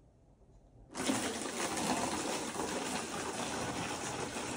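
Water being poured from a plastic measuring jug through a plastic funnel into a plastic gallon jug, a steady pour that starts about a second in.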